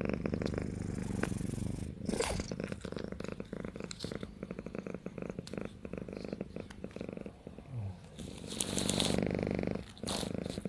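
Kitten purring steadily, a rapid continuous rumble that swells louder for about a second near the end.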